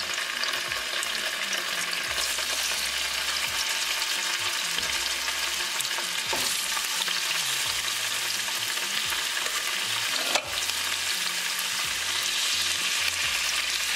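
Pork ribs sizzling steadily in hot olive oil in a frying pan as pieces are laid in meat side down, with one sharp tap about ten seconds in.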